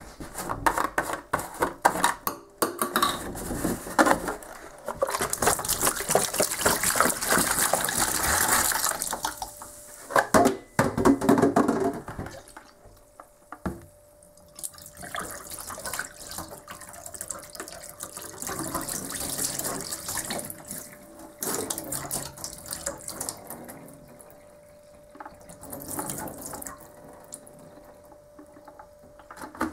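Milk being poured and splashing into a stainless steel kitchen sink, with knocks and clatters of bottle and glass against the steel. The splashing is loudest through the first twelve seconds or so, then turns to quieter pouring.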